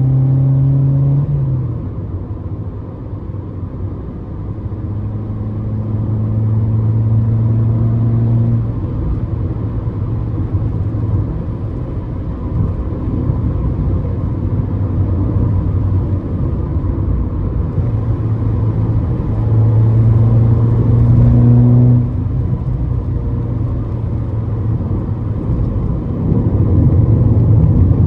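Ford Fiesta ST150's 2.0-litre four-cylinder engine running under way with road rumble. Its note holds steady for stretches and moves up and down in pitch several times.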